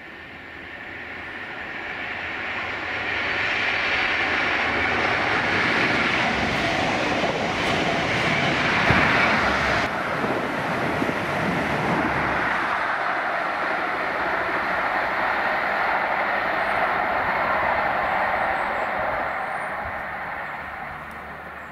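Yellow HST 'Flying Banana' measurement train with diesel power cars passing at speed: wheel-on-rail noise and engine sound. It builds over the first few seconds and is loudest as it goes by about ten seconds in, where the higher sound cuts off suddenly. It then fades away over the last few seconds.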